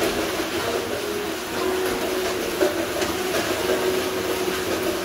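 Pit bull growling in long, unbroken stretches while it hangs by its jaws from a spring-pole tug toy.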